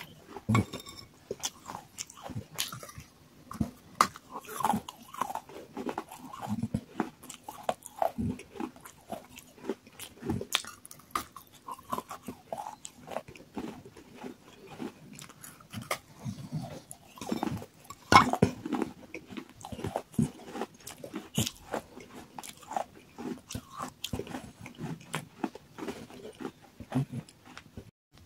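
Close-up biting and chewing of water-soaked terracotta clay pot pieces: irregular crisp crunches and grinding, with one sharper crack about 18 seconds in.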